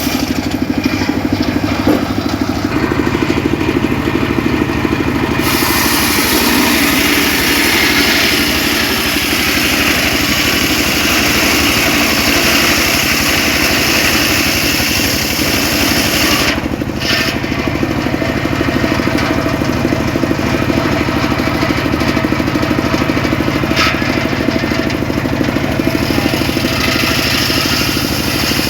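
Homemade engine-driven circular saw running steadily while its blade cuts mahogany, the cutting hiss rising and falling as the wood is fed through.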